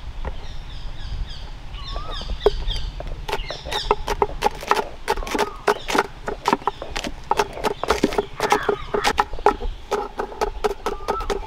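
Knives chopping green chillies on a round wooden chopping board: quick sharp knocks, several a second, starting about three seconds in, with the board ringing at each stroke.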